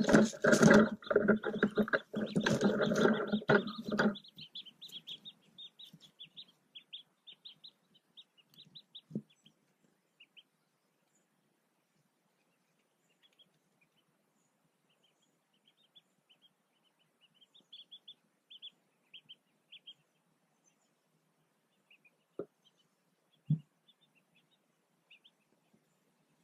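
Loud rustling and scraping as the mallard hen's wing and body brush against the nest camera, stopping about four seconds in. Then soft, high-pitched peeping of newly hatched mallard ducklings under her, in runs of quick peeps, with a few faint taps.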